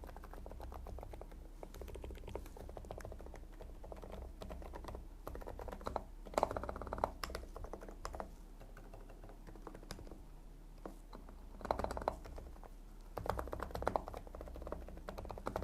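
Typing on a gasket-mounted mechanical keyboard fitted with AVAX Silent linear switches, which are licensed from Gateron. The keystrokes come as quiet, deep, muffled clicks in uneven flurries. The switches themselves make almost no sound; what is heard is mostly each press carried into the desk.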